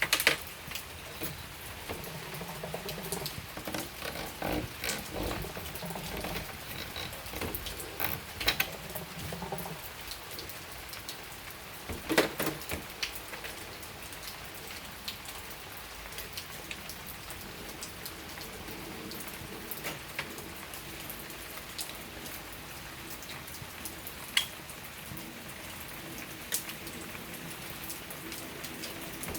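Steady rain falling and pattering on a surface, with scattered sharper drops tapping louder now and then.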